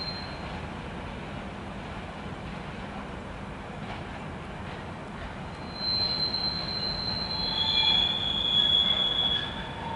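Freight train's flat wagons rolling slowly over the rails with a steady rumble; from about six seconds in, the wheels squeal in high, steady tones for some three seconds, then ease off.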